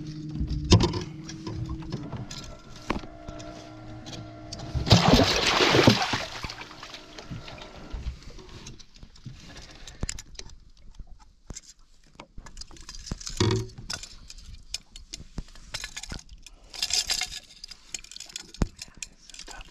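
Water splashing and sharp metal clicks and rattles as a northern pike is grabbed at the boat's side with a metal fish lip-grip and lifted. The loudest splash comes about five seconds in, and a low steady hum stops about two seconds in.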